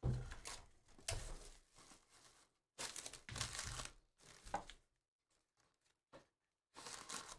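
Plastic trading-card pack and box wrappers crinkling as they are handled, in several bursts with short gaps between them.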